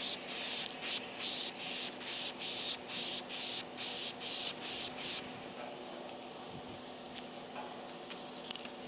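Aerosol spray-paint can spraying in short hissing bursts, about two a second, for some five seconds, then stopping.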